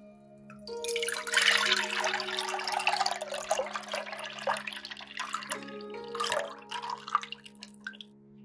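Whisked milk-and-egg mixture poured in a thick stream into a stainless steel saucepan, splashing and frothing as it lands. The pour starts about a second in and runs for several seconds, with a shorter splash again about six seconds in.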